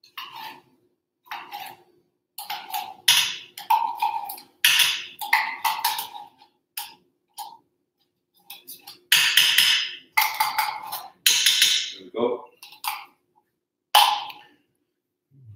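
Metal spoon scraping and knocking against a metal can and the stainless pot, a run of short scrapes and taps, as tomato paste is scraped into the sauce in an Instant Pot.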